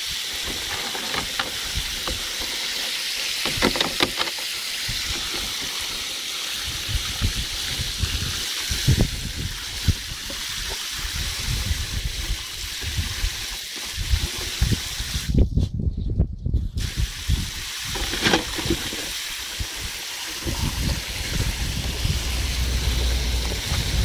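Garden hose jet spraying into a plastic tub filling with water: a steady hiss and splash, with louder splashes now and then as the husky puppy bites and drinks at the stream. The hiss drops out for about a second about two-thirds of the way through.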